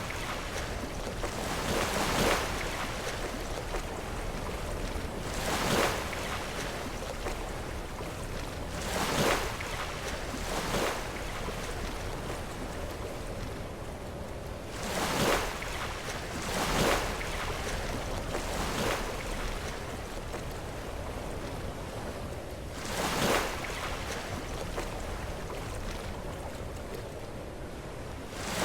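Sea waves crashing against rocks: a steady wash of surf, broken by about eight louder crashes that come every few seconds at uneven intervals.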